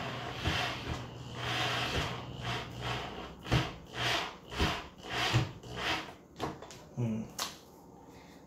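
Corded electric drill driving a screw through a caster's mounting plate into wood: the motor runs steadily at first, then in short bursts about two a second, with the screw rubbing and grinding in the wood. A few sharp clicks follow near the end as the drill is handled.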